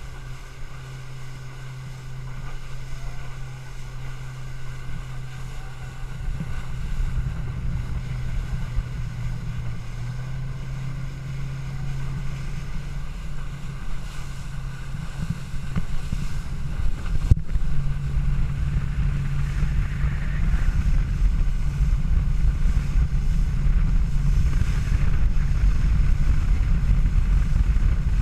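Boat engine running at a steady pitch that rises slightly twice, with wind buffeting the microphone and growing stronger toward the end.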